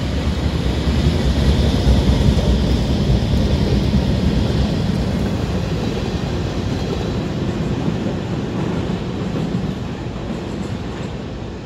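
CSX freight train passing below, led by a diesel locomotive, then its cars including a tank car rolling by. It is loudest about two seconds in and slowly fades.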